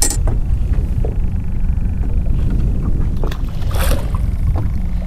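Wind buffeting the microphone in an open fishing boat on choppy water: a steady low rumble, with a few light knocks, the loudest just under four seconds in.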